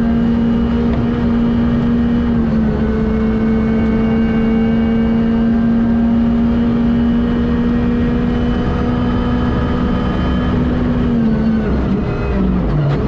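Onboard sound of a Ford Fiesta R5 rally car's turbocharged four-cylinder engine pulling hard at near-constant high revs. The revs drop briefly near the end and then pick up again.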